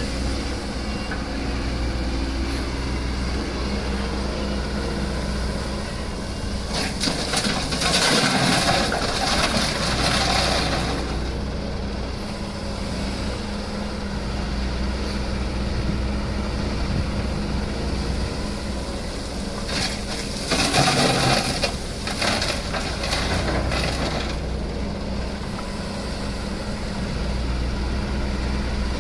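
SANY SY215C excavator's diesel engine running steadily under a low hum, with two spells of louder rushing, scraping noise, about a quarter of the way in and again past two thirds in, as the machine handles material.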